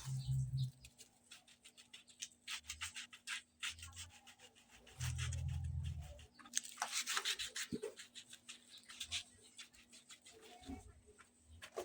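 Rubbing, scraping and small clicks from hands handling and working a piece of PVC pipe, with a few short bursts of low hum.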